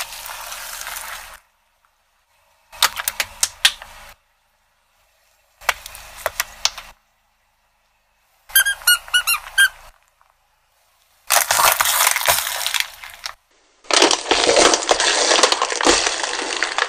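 A car tyre rolling over and crushing a run of different objects, each short clip cut off abruptly with silence between: squashing, bursts of sharp cracks, a quick run of squeaks about nine seconds in, then longer stretches of dense crunching and crackling near the end.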